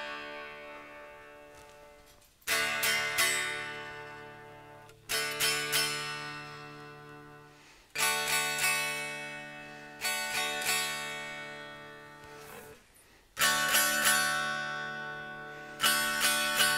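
Unplugged solid-body Les Paul electric guitars, Gibson and Epiphone, strummed one chord at a time. There are six chords, each a few quick strokes that ring out and fade before the next. The sound is thin and acoustic, picked up by a single room mic.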